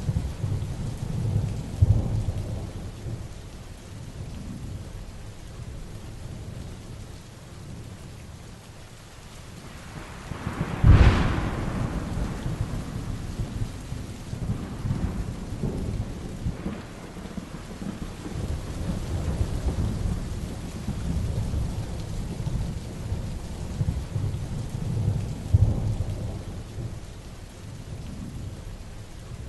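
Heavy rain falling steadily through a thunderstorm, with rolling thunder rumbling low and swelling repeatedly. A sharp, loud thunderclap comes about 11 seconds in.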